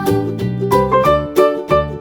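Upbeat background music led by a plucked string instrument, ukulele-like, with a bouncy bass line and notes changing on a steady beat.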